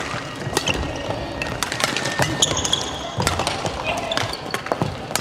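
Badminton rally: repeated sharp racket-on-shuttlecock hits and footfalls on a wooden court, with short squeaks of shoes on the floor, over chatter from other courts.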